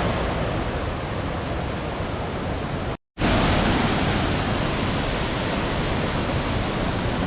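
Steady rush of river water and falls. It breaks off in a brief silent gap about three seconds in and comes back a little louder.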